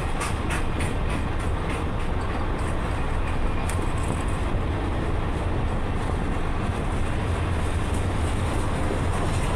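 Freight train of loaded flatcars rolling steadily past: a continuous rumble of steel wheels on rail, with a run of evenly spaced clicks in the first couple of seconds.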